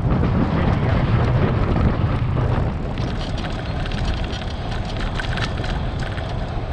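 Wind rushing and buffeting on the microphone of a camera riding on a moving tandem bicycle. About three seconds in the rumble drops and a patter of small crackles and ticks comes in.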